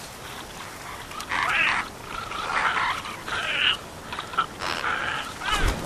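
A series of short, raspy calls from young azhdarchid pterosaurs, about five or six of them starting about a second in. The calls are sound-designed creature voices. A low thump comes near the end.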